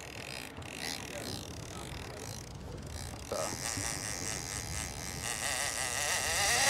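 Big-game reel's drag buzzing with a wavering pitch as a hooked bluefin tuna runs and takes line, starting about three seconds in and growing louder toward the end, over wind and sea noise.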